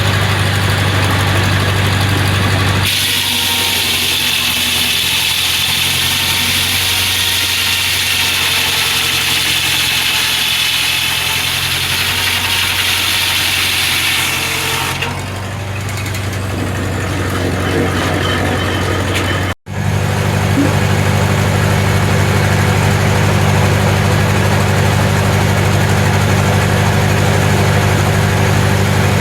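Engine powering a Corley sawmill, running steadily. From about three seconds in to about fifteen seconds in, a louder high hiss with a faint whine rides over it, typical of the circular saw blade cutting through a log. The sound breaks off for an instant about twenty seconds in.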